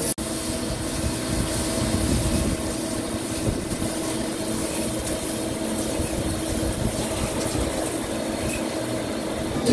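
CNC vertical lathe turning a large forged steel ring, with coolant spraying on the cut: a steady machining noise with a faint hum, broken by a momentary dropout just after the start.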